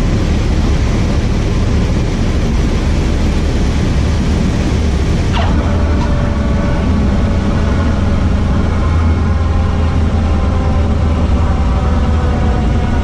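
Cessna 152's four-cylinder air-cooled engine and propeller running steadily, heard from inside the cockpit as the plane rolls along the runway. About halfway through there is a short click with a brief falling tone.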